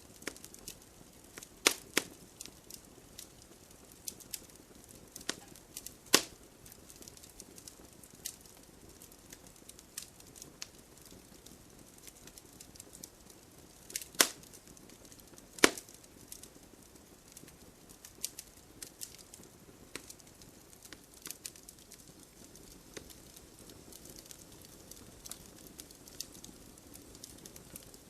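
Wood campfire crackling: irregular sharp pops and ticks over a soft hiss, with a handful of much louder snaps standing out, two pairs of them a little over a second apart.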